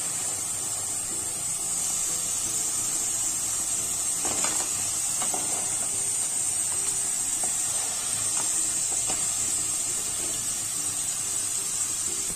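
Potato wedges in a samak rice-flour coating deep-frying in hot oil in a kadhai: a steady, even sizzle, with a few light knocks of a wooden spatula. The wedges are at the end of frying, on a turned-up flame to crisp them before they come out.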